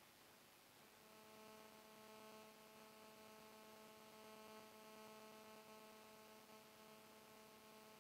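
Near silence with a faint, steady electrical hum that comes in about a second in.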